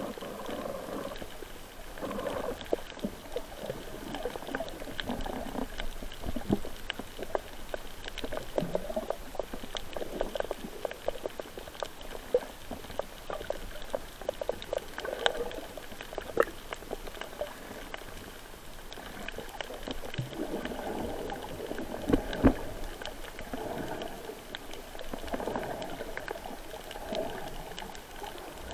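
Water heard underwater, muffled gurgling and bubbling around the camera, with frequent small clicks and two louder knocks about three-quarters of the way through.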